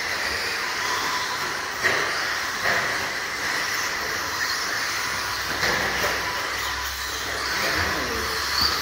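Several radio-controlled stadium trucks racing on a dirt track, their motors whining and tyres running on the dirt, with a couple of sharp knocks about two and three seconds in.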